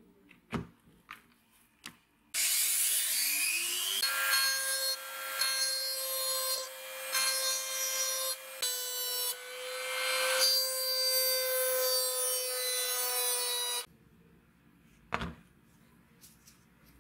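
Small rotary tool with a ball burr grinding at the pivot pin of an old straight razor's scales: the motor spins up with a rising whine, then runs as a steady high whine with a grinding rasp, dipping briefly a few times as the burr bites, and cuts off a few seconds before the end. Light clicks of handling come before it and a single knock after.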